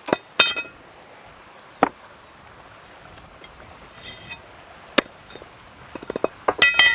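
Large knife chopping raw chicken feet off on a wooden stump block: a few sharp single chops spread out, then a quick run of several chops near the end. Some of the strikes leave a brief metallic ring from the blade.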